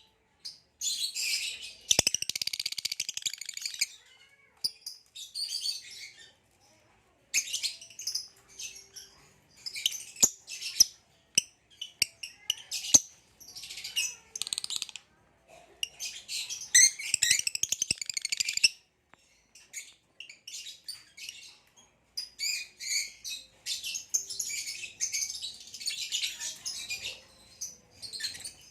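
Green hybrid Nyasa (Lilian's) lovebird singing: rapid, high-pitched chattering in bursts of one to three seconds with short pauses between, and sharp clicks scattered among them.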